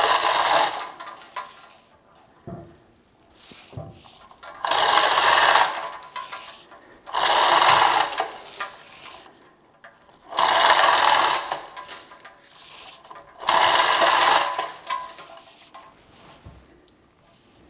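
Chain hoist lifting a heavy cast-iron milling-machine knee of roughly 400 to 600 pounds in five short runs of about a second each, with quiet pauses between.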